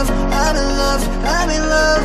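Background electronic music: a melody of short sliding notes, repeating about every second, over a steady bass.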